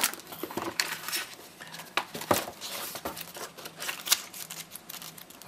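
A paper instruction booklet being picked up and its pages leafed through: soft paper rustling broken by a few short, sharp taps and flicks.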